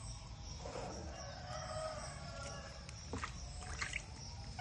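A faint, drawn-out animal call about one to two seconds in, over a steady background hum, followed by a couple of short sharp sounds about three and four seconds in.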